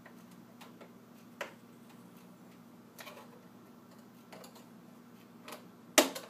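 Scattered light clicks and taps of a knife blade and fingers working a microwave door's plastic trim frame loose from its retaining clips, with one sharper click near the end.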